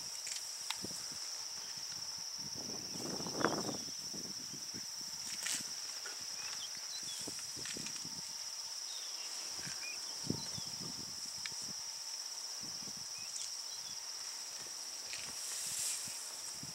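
Steady high-pitched insect buzzing, with scattered rustles and a few soft knocks from African elephants feeding on dry grass; the loudest rustle comes about three and a half seconds in.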